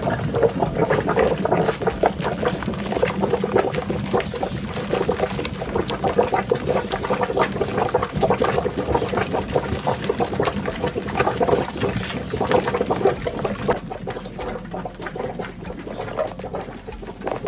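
Milk being scooped and poured out of a large cooking pot, the liquid splashing and sloshing irregularly.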